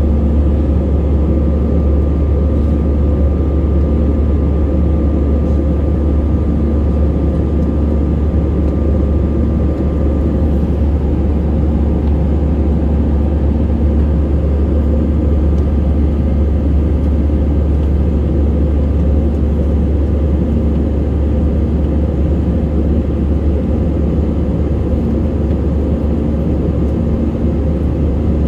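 Cabin noise of an Airbus A320-family airliner in flight: the jet engines and the rush of air give a loud, steady low rumble that does not change. A faint steady whine sits above it and fades out about a third of the way through.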